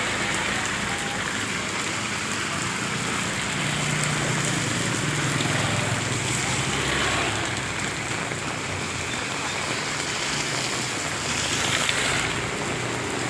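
Steady rain falling and pattering on surfaces, with a low hum that swells and fades in the middle.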